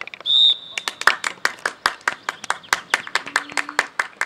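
One short blast of a referee's whistle, followed by a few people clapping steadily, about five or six claps a second, until near the end.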